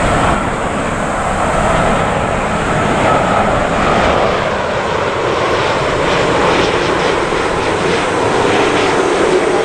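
Boeing 787-8's twin turbofan engines at approach power as the jet passes close by on its landing approach, gear down: a loud, steady jet roar whose whine slides down in pitch near the end as it goes past.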